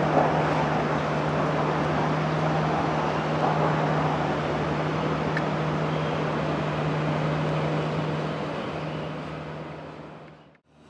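Downtown street ambience: a steady wash of traffic noise with a constant low hum under it, fading out near the end.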